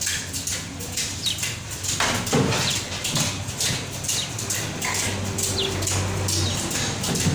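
Bare foot hopping in place on a tiled floor: soft, even landings, about three a second.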